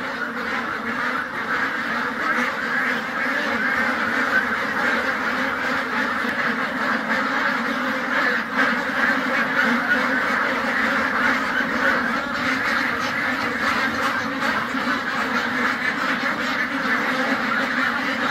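A large flock of white domestic ducks quacking nonstop, many calls overlapping into one dense, steady din.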